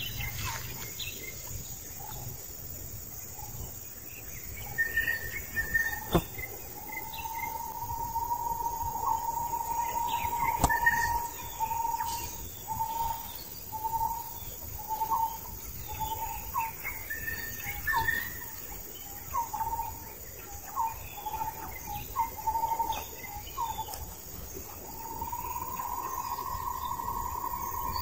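Forest insects and birds calling. A steady whistle-like tone breaks into short repeated notes, about one and a half a second, then turns steady again near the end. Higher chirps come now and then, and there are a couple of sharp clicks.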